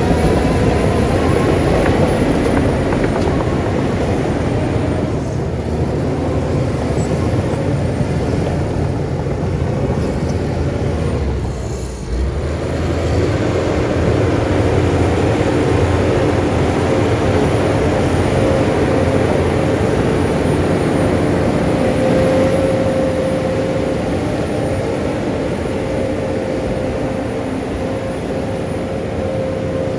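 Heavy earthmoving machine's diesel engine running steadily, with a steady higher tone over the low engine noise. The sound dips briefly about twelve seconds in.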